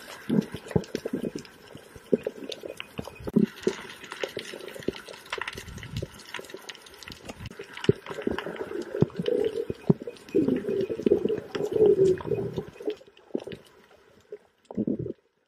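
Underwater camera audio: muffled gurgling and sloshing of water in irregular bursts, with scattered sharp clicks.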